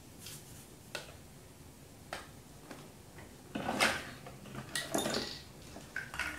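Small objects clicking and scraping against a stainless steel basin: a few single clicks, then two louder rattling scrapes around four and five seconds in.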